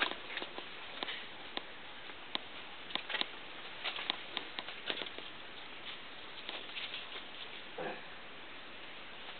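Footsteps crunching and rustling through dry leaf litter and forest undergrowth: irregular crackles and snaps over a steady hiss.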